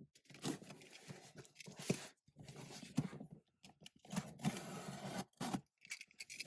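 Cardboard shipping box being opened by hand: packing tape tearing and cardboard scraping in short, irregular bursts, with a couple of sharp clicks.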